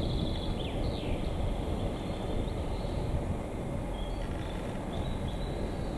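Narrow-gauge peat-railway diesel locomotive running slowly with a full train of peat wagons, a steady low engine rumble. Birds chirp briefly near the start and again about four seconds in.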